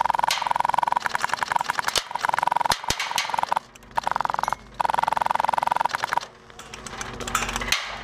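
Airsoft electric gun firing on full auto: rapid, even clicking over a steady whine, in long bursts with two short breaks near the middle, stopping about six seconds in.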